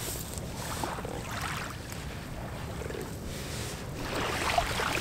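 Wind rumbling on the microphone at the shoreline, with a few soft scrapes of wet sand and gravel as a sand-covered catfish is picked up by hand.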